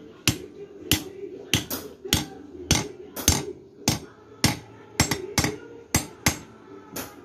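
Metal-on-metal hammer blows on the end of a steel pipe handle, driving it into the eye of a claw hammer head resting on a steel block: sharp clanks with a short ring, about one to two strikes a second at an uneven pace.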